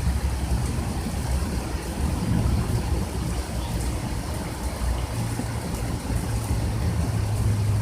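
Heavy rain falling, with a steady low rumble underneath.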